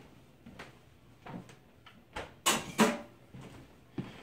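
A few soft knocks, then two louder clunks close together about two and a half seconds in and one more near the end: objects being handled and set down in a kitchen.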